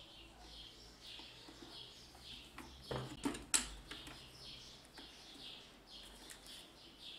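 A small bird chirping over and over, short high chirps at about two a second. A brief cluster of sharp clicks and knocks comes about three seconds in.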